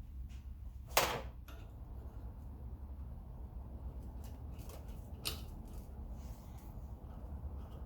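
Sharp clicks and knocks of tools and metal parts being handled during a strip-down, the loudest about a second in and another around five seconds, with a few fainter ticks between. A steady low rumble runs underneath.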